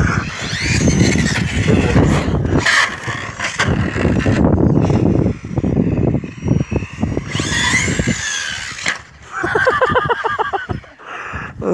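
Electric RC truggy with a Castle 5800 kV brushless motor on 3S, the motor whining up and down in pitch as the truck accelerates and slows over a dense rumble of running noise.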